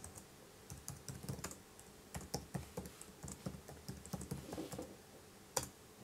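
Typing on a laptop keyboard: a faint run of irregular key clicks, with one sharper, louder click near the end.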